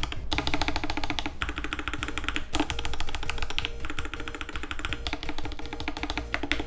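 Rapid keystrokes on a mechanical keyboard as a sound test, with the metal (zinc-alloy) Enter keycap among the keys struck. The clicks sound solid, with a little more of a metal sound. Chiptune background music plays under them.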